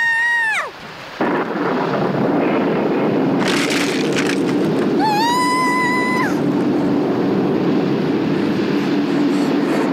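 Thunderstorm: lightning strikes with a sharp crack about three and a half seconds in, over a steady rumble of thunder and heavy rain. A child's high, held cry sounds right at the start and again around five seconds in.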